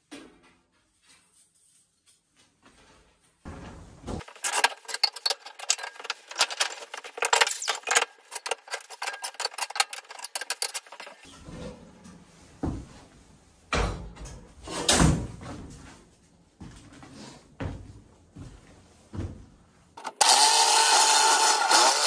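Stovepipe being fitted to a wood stove: rapid clicking and rattling, then scattered knocks and thumps. About two seconds before the end, a power saw starts and runs steadily and loudly through wood.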